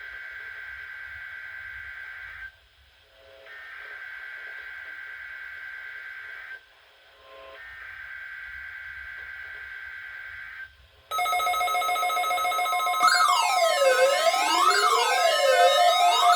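Three bursts of the warbling digital data tones of an Emergency Alert System SAME header, opening a NOAA Weather Radio weekly test. About eleven seconds in they give way to a much louder electronic alarm from the weather radios. The alarm starts as steady tones, and about two seconds later repeated rising-and-falling sweeps join it.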